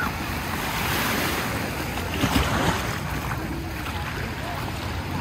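Small sea waves breaking and washing up the sand, with a louder wash a little over two seconds in, and wind on the microphone.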